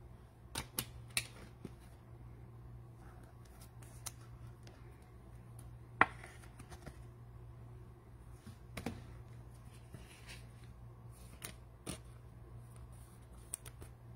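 A sleeved trading card being handled and slid into a clear rigid plastic top loader: scattered light plastic clicks and scrapes, the sharpest about six seconds in, over a low steady hum.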